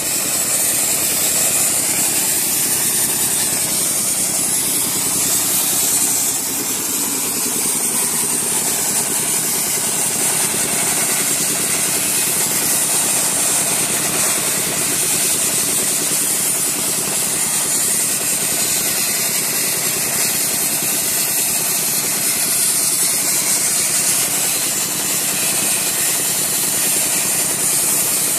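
A small horizontal diesel engine and a piston air compressor running steadily, under the continuous loud hiss of a wet sandblasting nozzle spraying.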